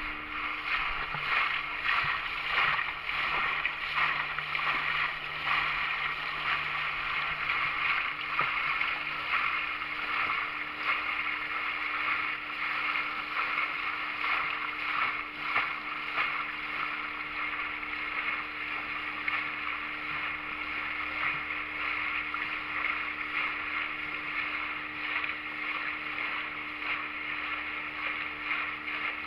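Small motorboat running steadily across open sea: a constant engine hum under the rush and splash of water along the hull.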